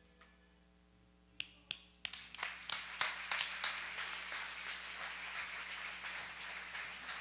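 Church congregation applauding: a few scattered claps first, then from about two seconds in a steady burst of dense applause.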